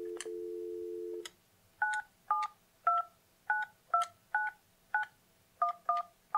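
Dial tone from an Alcatel-Lucent 8018 deskphone, two steady tones, cut off about a second in, followed by about ten touch-tone (DTMF) beeps, each a short two-note tone, roughly two per second, as a phone number is keyed in.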